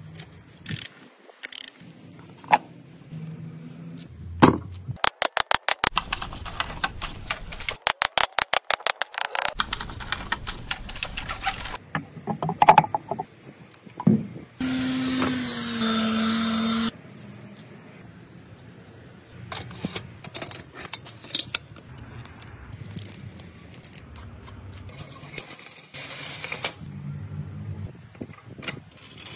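Hand assembly of restored Jawa 350 motorcycle parts (brake plate, wheels, fork triple clamp): metal clinks, knocks and scrapes. A fast run of even clicks comes about five to nine seconds in, and a steady motor whir lasts about two seconds around the middle.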